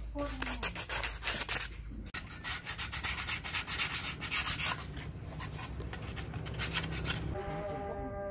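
Sandpaper rubbed by hand over a carved rosewood gourd in quick, uneven back-and-forth strokes. Near the end the rubbing stops and a steady, low pitched tone starts.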